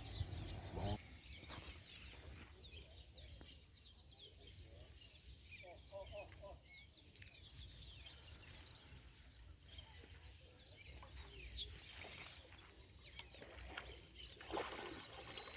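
Faint outdoor ambience of small birds chirping in many short, quick calls, over a low rumble.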